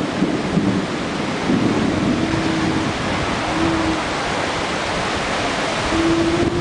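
Strong storm wind rushing and buffeting the microphone in a steady loud roar. A few brief low tones, each holding one pitch, sound through it, the longest near the end.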